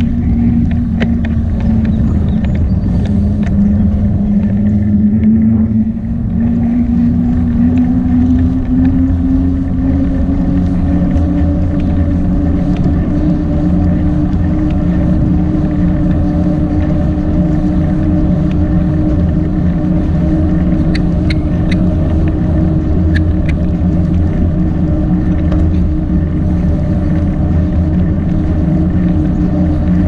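A motor running steadily under a low rumble, its pitched hum rising slowly over the first ten seconds or so and then holding level.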